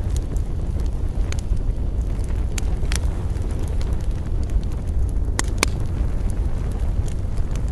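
Campfire burning, with scattered sharp crackles and pops over a steady deep rumble; a few louder pops stand out about one and a half, three, and five and a half seconds in.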